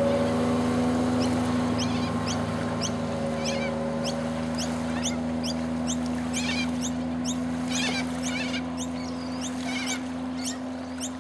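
Ski boat's engine drone slowly fading as the boat pulls away into the distance. Over it a bird repeats short, high, downward-sweeping chirps about twice a second.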